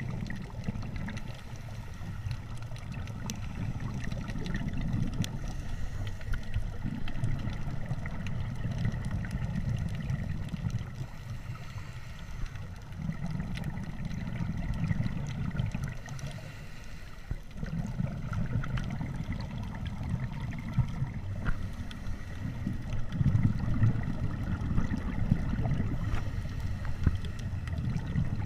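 Muffled underwater rumble of a scuba diver's exhaled regulator bubbles, heard through a camera housing. It swells for a few seconds and eases off in short lulls, breath after breath.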